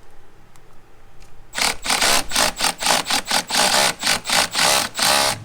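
Milwaukee M12 Surge hydraulic impact driver running under load, about a second and a half in, in a fast train of pulses with a motor whine, as it drives a long screw into a deck board. It stops just before the end.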